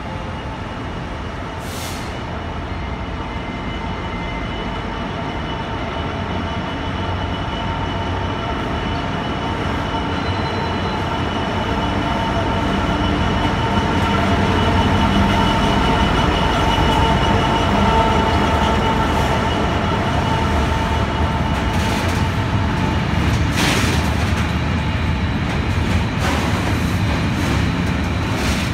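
A Class 66 diesel freight locomotive's two-stroke V12 engine drones steadily, growing louder as it draws slowly past and peaking about halfway through. After it comes the rolling rumble of its Network Rail hopper wagons, with a few sharp clanks near the end.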